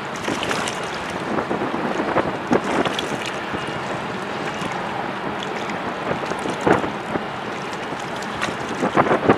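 Wind rushing over the microphone above choppy harbour water, with irregular splashes and knocks of small waves, several close together near the end.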